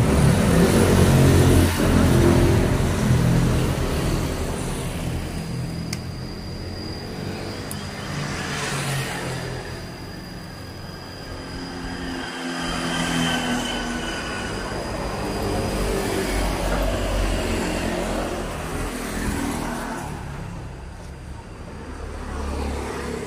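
Road traffic: motor vehicles passing one after another, their engine sound swelling and fading, loudest in the first couple of seconds.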